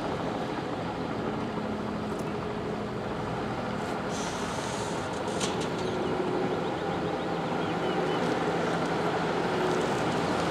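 Steady engine drone with a low, even hum, slowly growing a little louder.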